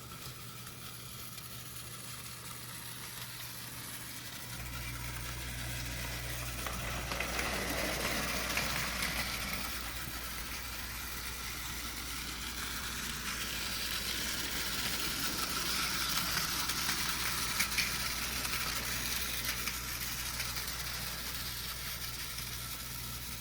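Two battery-powered Plarail toy trains running laps on plastic track, their small motors and gearboxes whirring with the clatter of wheels on the rails. The sound swells twice as the trains pass closest, and a steady low hum comes in about four seconds in.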